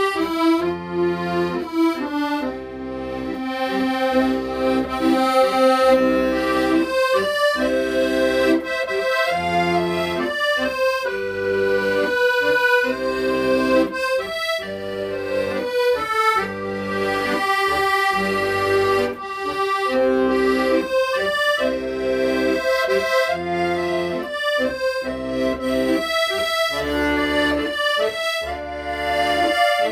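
Accordion playing a slow, lyrical song melody over rhythmic bass-and-chord accompaniment from the left-hand buttons, notes held and changing in regular steps.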